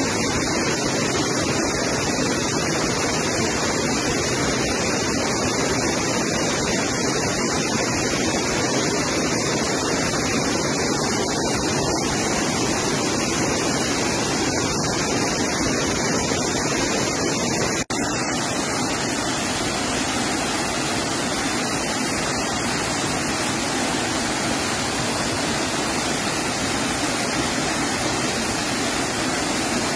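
Waterfall: a heavy flow of water pouring over stone weir steps and rushing between rocks, a steady, loud rush with a brief drop a little over halfway through.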